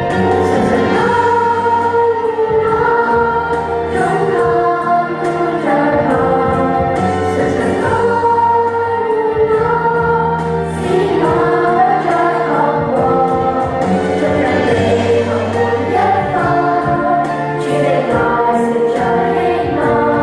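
A song with group singing over a steady instrumental accompaniment, with sustained bass notes under the voices.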